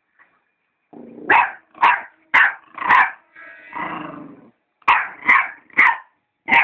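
Dog barking: four sharp barks, a longer low growl, then four more sharp barks.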